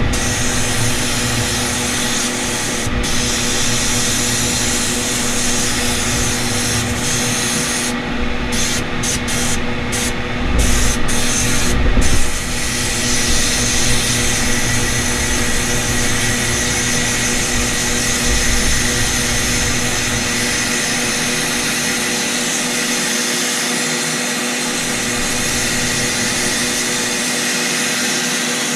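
Sandblaster blasting metal vise parts: a loud, steady hiss of air and abrasive over a steady hum. The hiss breaks off briefly several times about a third of the way in, as the blast is let off and started again.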